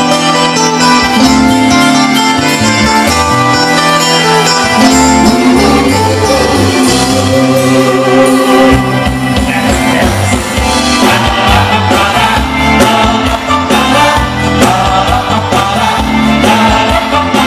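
Live band playing amplified dance music: electric guitars, bass, drums and a horn section, with singers, all at a loud, even level over a steady drum beat.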